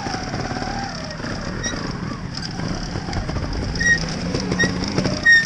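Trials motorcycle engines running and revving in short blips as riders climb and drop off blocks, with a few short high chirps and a brief louder burst near the end.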